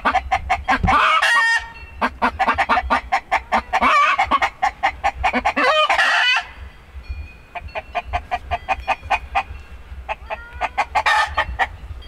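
Hens clucking rapidly and loudly, broken by several long, drawn-out squawks, as they squabble over a nesting box.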